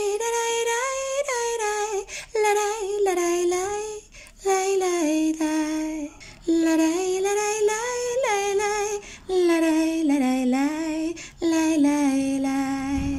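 A woman singing a simple melody in about six short phrases, with brief pauses between them.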